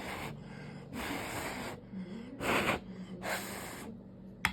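Short hissing sprays from a small bottle of alcohol, three in quick succession, followed by a sharp click near the end.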